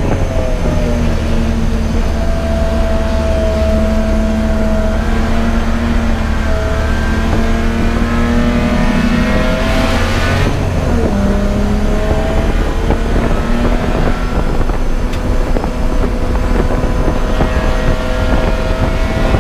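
Race car engine running hard, its pitch climbing slowly, dropping sharply about eleven seconds in, then climbing again, with a steady rush of noise underneath.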